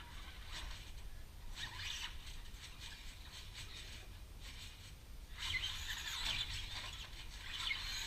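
Electric RC car driving in spurts on a trampoline mat: a short burst of hissing, squealing motor and tyre noise about two seconds in, and a longer, louder one from about five seconds on, over a low rumble.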